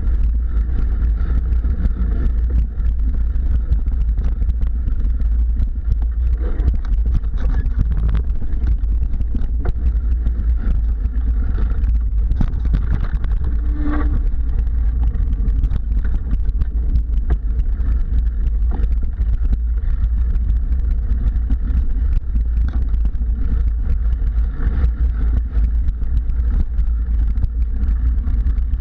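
Mountain bike riding over dirt singletrack, heard from a camera mounted on the bike: a steady deep rumble of wind buffeting and trail vibration, with scattered small knocks and rattles.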